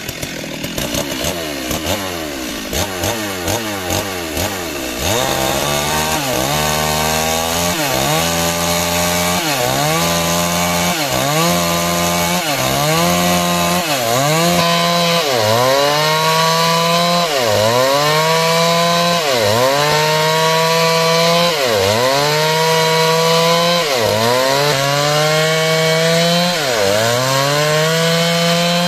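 Two-stroke chainsaw cutting through timber under load, its engine pitch dipping sharply and climbing back about every second and a half.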